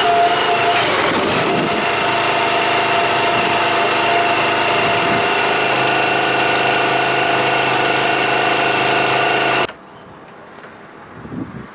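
Small petrol engine on a cable drum trailer running steadily at a constant speed. The sound cuts off suddenly near the end, leaving only a couple of faint knocks.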